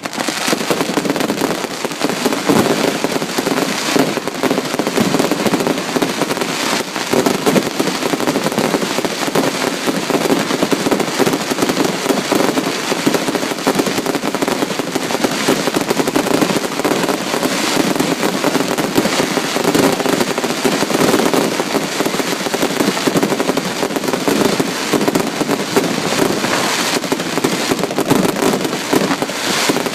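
Fireworks display: a dense, unbroken barrage of shell bursts and crackling, many bangs a second.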